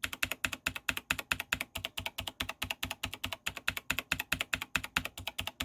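Mechanical keyboard keys on a Razer BlackWidow Elite, fitted with Razer double-shot PBT keycaps, pressed rapidly and repeatedly, about eight clicks a second. It is an O-ring dampening test: the Y key has no O-ring and the H key has a Razer O-ring.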